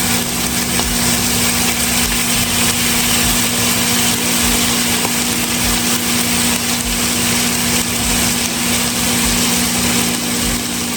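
Microwave oven running with a steady electrical hum, over chicken pieces sizzling in a cast iron skillet.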